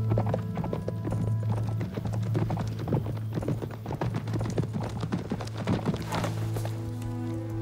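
Hoofbeats of a horse galloping on a dirt track, a fast run of thuds, over background music with steady held low notes.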